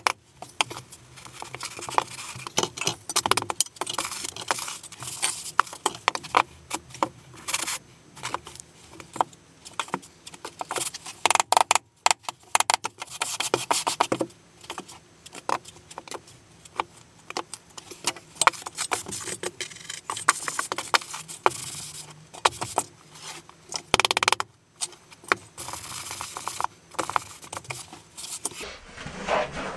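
Deck mud (sand-cement dry-pack mortar) being packed and screeded by hand: a level and trowel scrape across the gritty bed in uneven strokes, with sharp taps and clicks of metal tools on the mortar.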